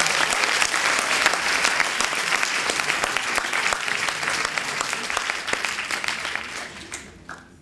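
Lecture-hall audience applauding, a dense patter of clapping that thins out and dies away near the end.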